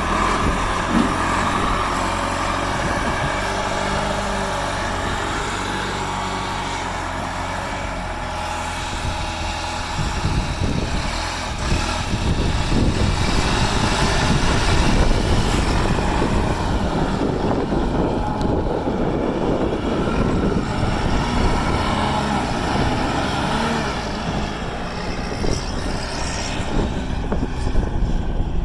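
John Deere 610B backhoe loader's diesel engine running, steady for the first ten seconds or so, then rougher and busier as the machine is worked.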